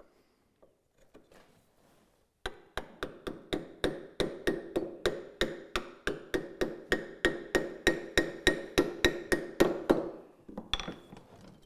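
A hammer driving a chisel to chop a mortise through wood, in a quick even run of sharp knocks, about four a second. The blows start a couple of seconds in and stop about ten seconds in as the mortise breaks through.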